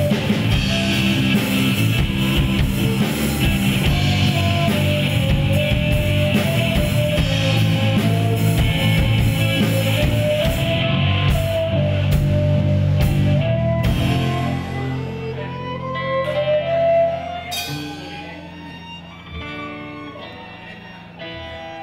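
A live rock band playing: electric guitars, bass, drums and a violin carrying a melody line. About fourteen seconds in, the music thins out and gets quieter, falling away further near the end.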